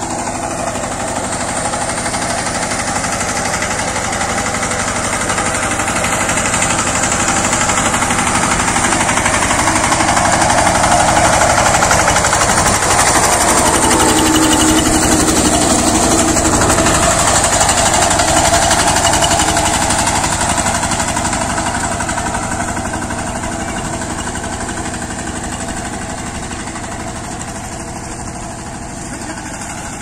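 Walk-behind power tiller's engine running steadily with a fast rattling beat as it ploughs wet paddy mud. It grows louder toward the middle as the tiller comes close, then fades as it moves away.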